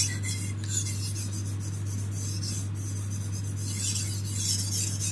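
Knife blade stroked back and forth on an oiled hard white Arkansas stone, a soft repeated scraping of steel on fine natural stone, at the finishing stage of sharpening. A steady low hum runs underneath.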